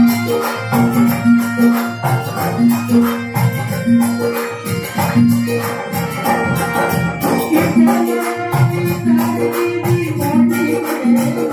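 Live devotional folk band playing: short, repeated held melody notes from keyboard and harmonium over a fast, even beat of drums and jingling hand percussion.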